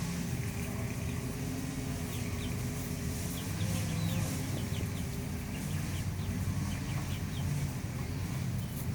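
A flock of young chickens chirping and clucking, many short high falling chirps scattered through the middle, over a steady low hum.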